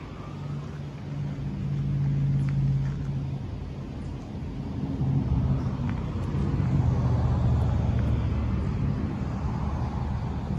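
Porsche 944 Turbo's turbocharged four-cylinder engine running, heard at the tailpipe as a low steady drone. It swells louder twice.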